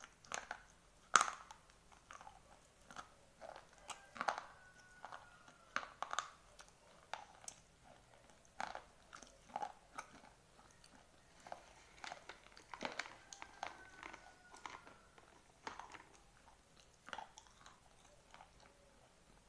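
Dry white slate pencils being bitten and chewed: irregular sharp crunches throughout, the loudest about a second in.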